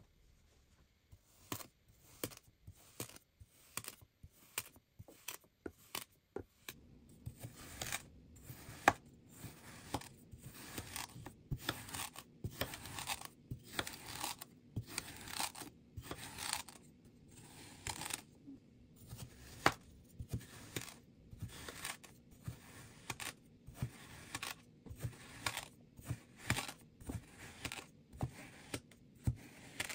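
Kitchen knife slicing again and again through packed kinetic sand: a long run of short, crisp crunches, about one or two a second, each blade stroke going through the sand to the board.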